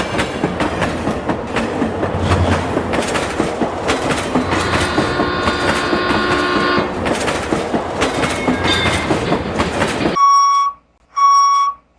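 Train running: a steady rumbling clatter with rapid clicking wheels and a horn sounding for about two seconds in the middle. Then it cuts off for two short electronic beeps near the end.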